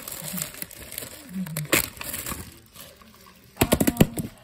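Plastic candy wrappers crinkling as they are handled, with a sharp click a little under two seconds in and a quick run of sharp clicks and knocks near the end.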